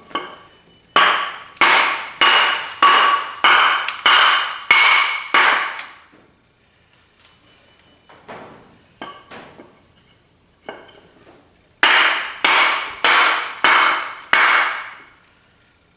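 Loud hammer blows on metal, each one ringing, struck in two runs of about two blows a second with a few lighter taps between. This is an attempt to shock a rusted-solid nut loose on a seized small-block Chevy 350.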